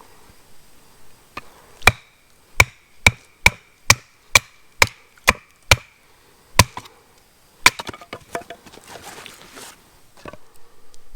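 Chopping wood with a hatchet: about eleven sharp strikes, roughly two a second with a short pause before the last two, each with a brief ring. A stretch of crackling and rustling follows, like split pieces falling or being handled, then one lighter knock near the end.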